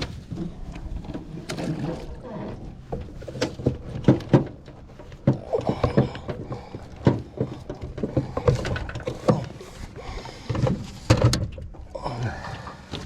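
Irregular knocks, clunks and rattles of fishing gear being handled in a boat.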